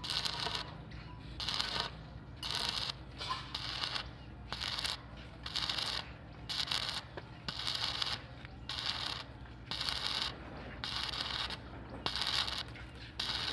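Metalwork on a steel frame: short rasping bursts of metal noise, about one a second, over a steady low hum.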